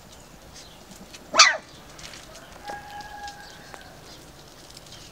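A Finnish Lapphund puppy gives one short, sharp yelp about a second and a half in. About a second later there is a faint steady tone lasting about a second.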